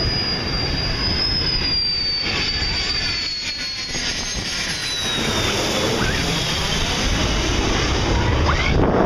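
USAF Thunderbirds F-16 fighter jet passing low overhead with its landing gear down on approach: a steady jet rush with a high whine that slides down in pitch as it goes by.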